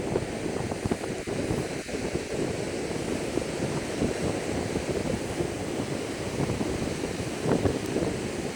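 Strong wind buffeting the microphone, a rumbling rush with a louder gust near the end, over ocean surf breaking on the beach.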